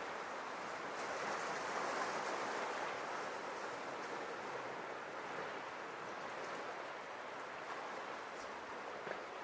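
Small Mediterranean waves washing and lapping against the rocks of a cove as a steady wash that swells a little about two seconds in.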